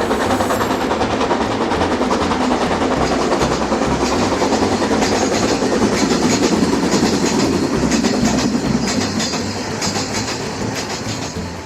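RailKing toy freight train hauled by two locomotives running along its track: a steady rumble with wheels clattering over the rail joints, easing slightly near the end.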